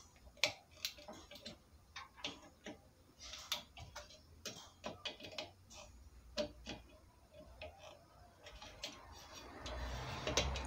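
Needle-nose pliers clicking and scraping on the nuts, terminals and wires of a power amplifier's audio-transistor heatsink bracket as the transistors are unfastened: faint, irregular small metallic clicks, with a soft rustle near the end.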